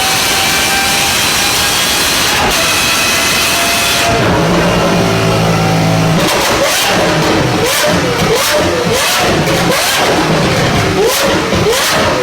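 Naturally aspirated V12 car engines: first one running at high revs with a slowly rising pitch, then abruptly a different engine idling, which from about six seconds in is revved in a rapid series of short throttle blips.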